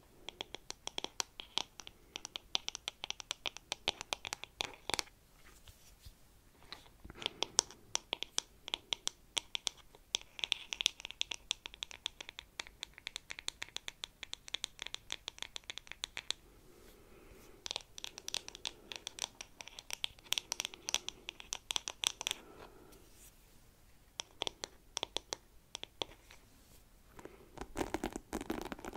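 Fingernails scratching and tapping a wooden hairbrush with wooden pins, held right against the microphone: rapid crisp scratchy clicks in runs of several seconds, broken by short pauses.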